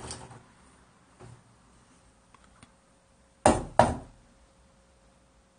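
Faint clicks of a doorknob being tried on a locked wooden door, then two sharp knocks on the door about three and a half seconds in, a third of a second apart.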